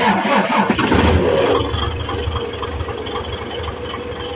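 Mitsubishi Fuso 6M70 inline-six common-rail diesel engine cranking and catching about a second in, then settling into a steady idle. It starts readily now that the common-rail pressure limiter has been replaced, so the hard start is cured.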